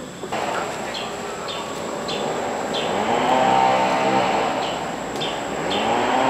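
A motor vehicle's engine rising in pitch and then holding, loudest about three seconds in and rising again near the end, with short high chirps repeating every half second or so.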